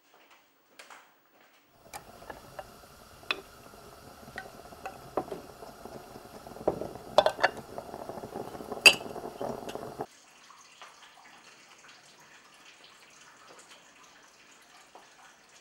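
Kitchen sounds: crockery and cutlery clinking, with a stovetop moka pot on a gas flame bubbling and sputtering as the coffee comes up. The clinks are sharp and scattered, the loudest near the middle, and the sound stops abruptly about ten seconds in, leaving only faint background.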